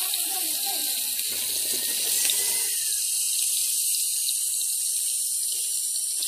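Fish frying in hot oil in a wok: a steady sizzle with small crackling pops.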